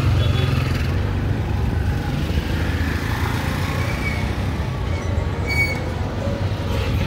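Street traffic in a busy market lane: a steady low hum of motorbikes and cars going by, with a brief high tone about five and a half seconds in.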